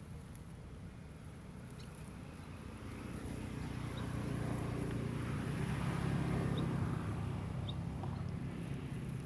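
An engine passing by, its steady low hum growing louder through the middle and peaking near the end before easing off.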